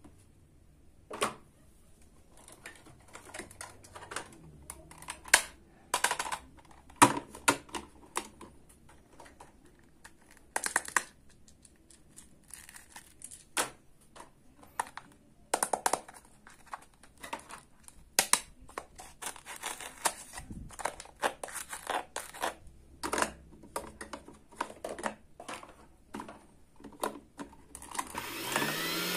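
Plastic toy kitchen pieces clicking and knocking as they are handled and fitted together, a toy hand mixer and its clear plastic bowl among them. Near the end the toy mixer's small electric motor switches on, its whine rising in pitch as it spins up.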